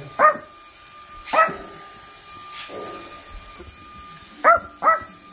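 A small dog barking in short, sharp yips, four in all: one near the start, one about a second later, and two in quick succession near the end. Beneath them runs a steady high hum, from the hovering flying-orb toy's spinning propeller.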